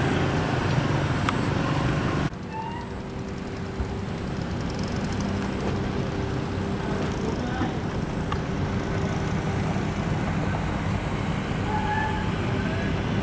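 Engine running steadily under outdoor background noise. About two seconds in the sound changes abruptly and drops a little, then a steady hum with a constant tone holds.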